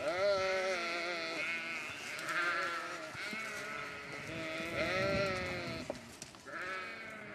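Sheep bleating: several long, quavering bleats one after another.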